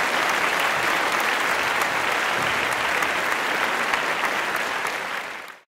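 Audience applauding with a steady mass of claps, which fades out and stops near the end.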